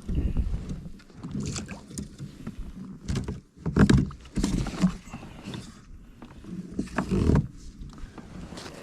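Irregular knocks and sloshing around a fishing kayak on the water, coming in uneven bursts, with louder clusters near the start, about four seconds in and about seven seconds in.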